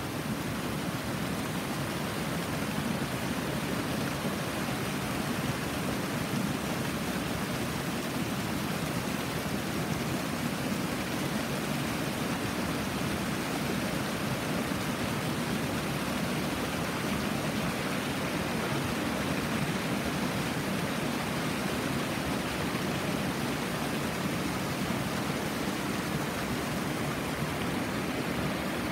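Steady rushing of a flowing jungle stream, an even wash of water noise with no breaks.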